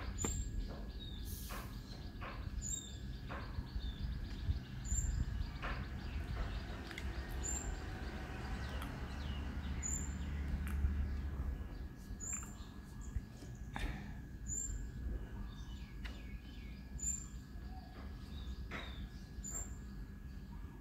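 Birds chirping, one short high chirp repeating about once a second, over a low steady rumble with a few scattered clicks.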